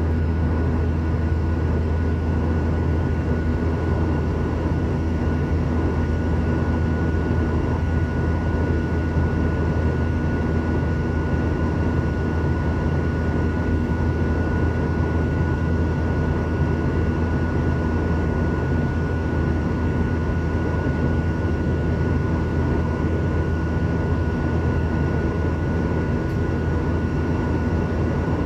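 Steady cabin noise of a Boeing 737 airliner in flight, heard from a window seat over the wing: a deep, even jet-engine and airflow rumble with a thin steady high tone on top.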